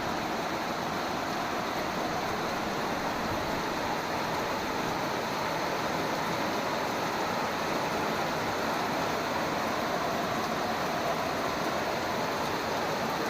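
Fast-flowing floodwater rushing, a steady unbroken noise.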